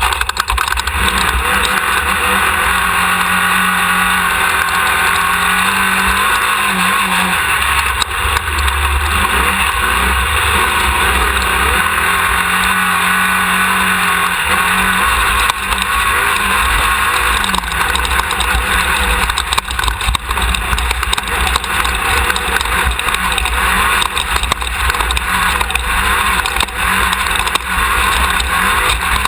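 Class 1600 off-road race buggy's air-cooled 1600cc Volkswagen engine running hard under load, heard up close from a rear-mounted onboard camera, its pitch rising and falling with the throttle. Continuous wind rush, with frequent knocks and rattles from the chassis over rough ground.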